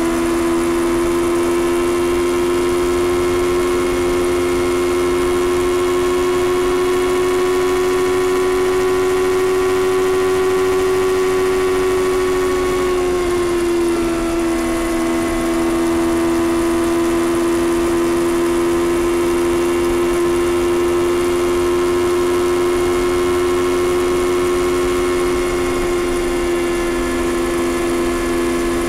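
2021 Kawasaki Ninja ZX-6R's 636 cc inline-four engine running on its stock exhaust at a steady highway cruise, with wind noise under it. The pitch creeps up slightly, dips a little just under halfway through, then holds steady again.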